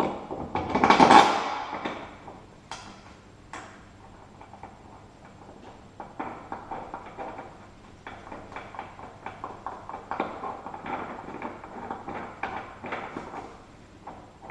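Hand work on a car's lower control arm bushing and bolt: a loud rush of clattering noise about a second long near the start, then a few sharp clicks, and from about halfway a run of quick light metallic clicks and taps as the nut is fitted on the bolt but not yet tightened.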